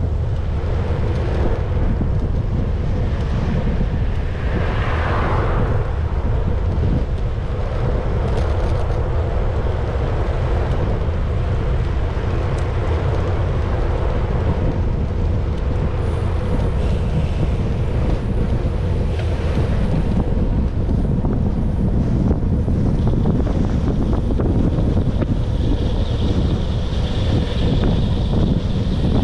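Wind buffeting the microphone: a steady, loud rumble with no break, over faint steady hums. A higher hiss joins in for the last few seconds.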